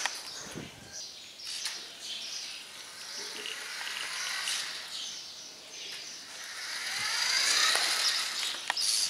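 Small electric drive motor and gears of an RC car whining as it drives, the pitch sliding up and down as it speeds up and slows, loudest about seven to eight seconds in, with a few sharp clicks.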